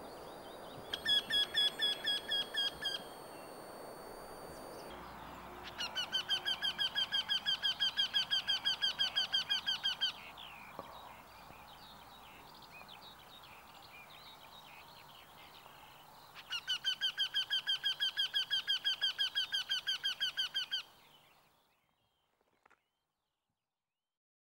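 Eurasian wryneck calling: three runs of loud, evenly repeated notes, a short run about a second in and two longer runs of about four seconds each, the call fading out near the end.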